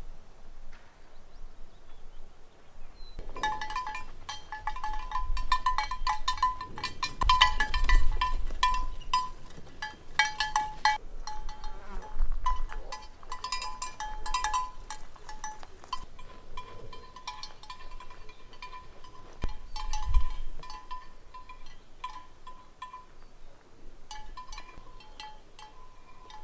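Sheep bells clanking irregularly with a clear ringing tone as sheep move and graze, starting about three seconds in. Low rumbles rise and fall beneath them, loudest about eight seconds in and again near twenty seconds.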